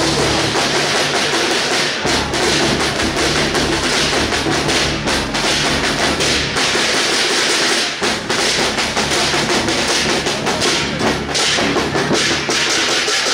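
Loud, continuous percussion of a Taiwanese temple procession troupe: a large barrel drum beaten over cymbals.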